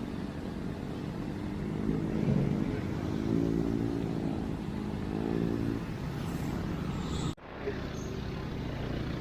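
Road traffic: motor vehicle engines running past, with an engine hum that swells and fades in the middle. The sound cuts out abruptly for an instant near the end, then a steady rumble resumes.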